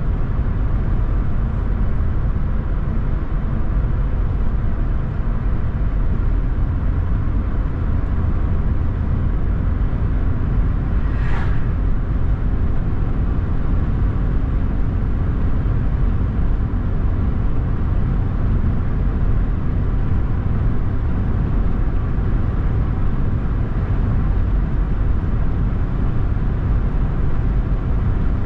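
A car driving along at a steady speed: a constant low road and engine rumble, with a brief hiss about eleven seconds in.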